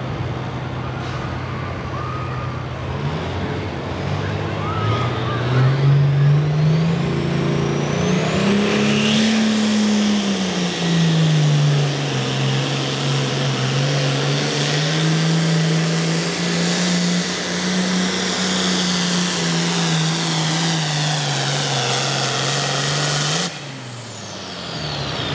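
International Harvester Pro Farm pulling tractor's turbocharged 466 cubic inch diesel with a Borg Warner S400 turbo, revving up under full throttle on a pull. The turbo whine climbs steeply over the first several seconds and then holds while the engine note wavers under load. The sound drops off sharply shortly before the end, with the whine falling away.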